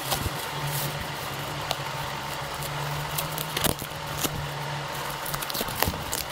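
Plastic courier mailer and taped cardboard box being torn and pulled open by hand: crinkling and tearing with many sharp crackles and a few louder snaps. A steady low hum runs underneath.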